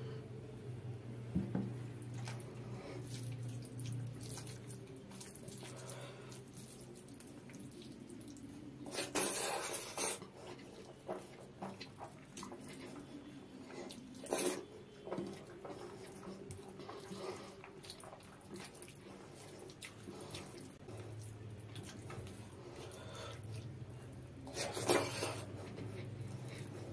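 Close-miked wet eating sounds: fingers mixing rice with runny mung dal, and chewing, with scattered squelches. The louder ones come about nine, fourteen and twenty-five seconds in, over a steady low hum.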